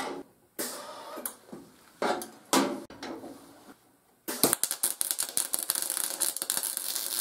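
A few short knocks and clanks, then about four seconds in a MIG welder's arc strikes and runs with a fast, uneven crackle on thin 16-gauge steel. It sputters because the voltage is set too low.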